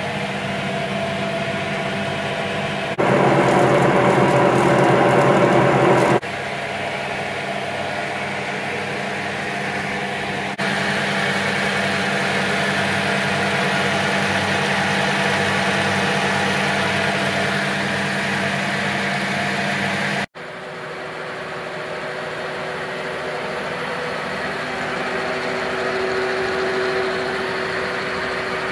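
1963 Adcock & Shipley 1AG milling machine running under power, a steady mechanical hum heard in several short clips that cut from one to the next. It is loudest between about 3 and 6 seconds in, and quieter and duller after a sharp cut about 20 seconds in. The clips set the machine's sound with its failed output-shaft bearing beside its sound after the bearing was replaced.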